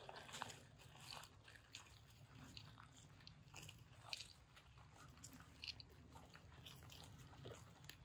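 Faint, irregular crunches and snaps of footsteps through dry pine straw and twigs.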